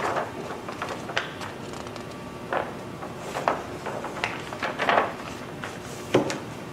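A handful of soft, irregularly spaced knocks and clicks over low room hiss.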